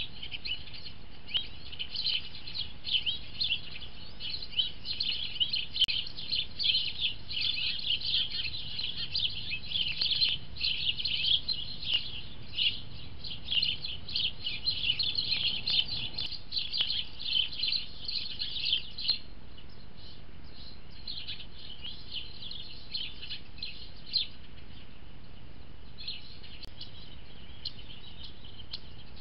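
Many small birds chirping in a dense, rapid chatter that thins out to scattered bursts after about 19 seconds, over a faint steady hiss.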